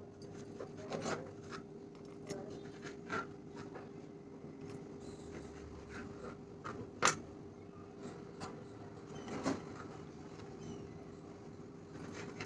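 Knife cutting brown bread on a chopping board: scattered rasping strokes and light knocks of the blade on the board, the sharpest about seven seconds in, over a faint steady hum.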